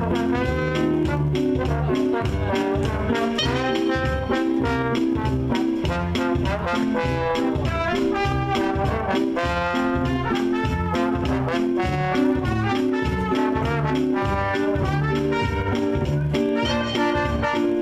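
Live swing band playing an up-tempo brass tune: trumpets and trombones over a moving bass line and a steady drum beat.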